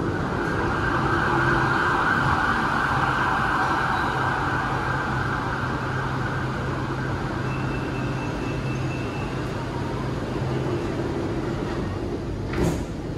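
Interior of a BTS Skytrain car standing at a station with its doors open: a steady hum and hiss. Near the end the sliding doors shut with a single thump.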